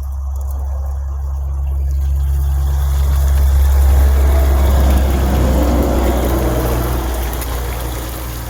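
Floured deer meat frying in hot grease, sizzling, over a steady low rumble. The sound swells louder around the middle and then eases off.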